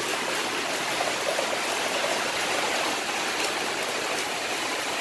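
Steady, even hiss of heavy rain falling, with faint scattered drip ticks.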